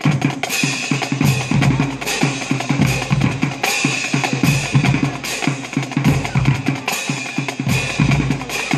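Drums playing a fast, busy beat: rapid snare hits over deep bass drum strokes that come every second or two.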